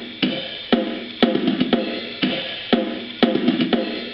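Boss DR-770 drum machine playing a steady drum-kit pattern through an old boombox's speaker, with a strong hit about twice a second and lighter hits between.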